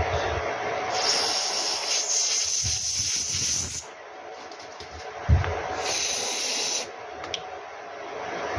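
Aerosol contact-cleaner spray hissing into a phone's dirty headphone socket in two bursts: a long one of about three seconds starting about a second in, and a shorter one about six seconds in. A thump comes just before the second burst, and a small click follows it.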